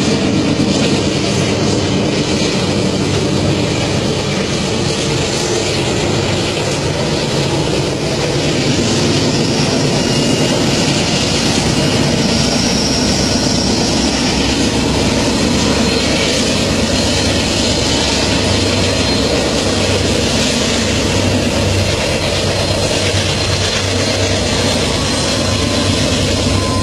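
Freight train's diesel locomotives running, a steady loud drone with no break.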